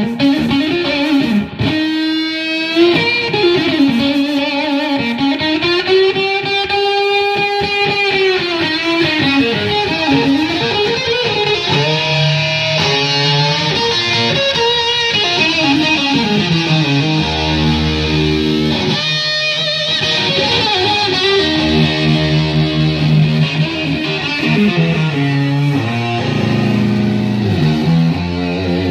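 Strat-style electric guitar played through a Black Cat Super Fuzz pedal into a blackface Fender Reverb amp, giving a thick, fuzzed tone. Sustained lead lines with a long note bent up and back down, then lower held notes and chords in the second half.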